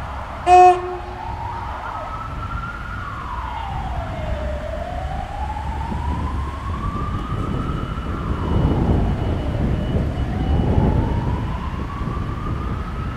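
A short, loud horn blast about half a second in. It is followed by an emergency-vehicle siren in a slow wail, rising and falling about every five seconds. A low rumble swells partway through.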